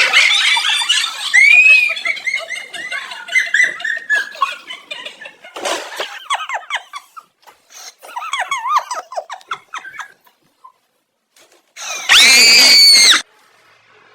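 An animal's high-pitched squeals and cries: a run of short, wavering calls over the first ten seconds, then a pause and one loud, shrill squeal about twelve seconds in.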